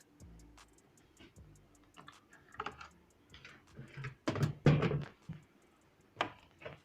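Scattered light clicks and knocks, with a louder clunk and clatter about four and a half seconds in and two sharper knocks near the end.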